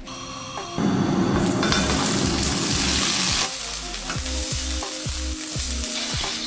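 Chicken sizzling as it fries in hot oil, loudest from about a second in until about three and a half seconds, then quieter. Background music with a sliding bass line plays underneath.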